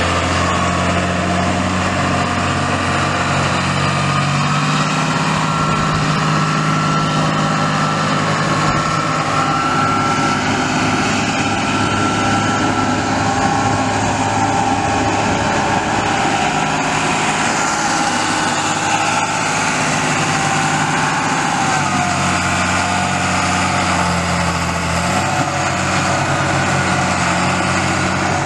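John Deere 8100 tractor's 7.6-litre six-cylinder turbo diesel running steadily. Its note shifts about five seconds in and shifts back with about six seconds to go.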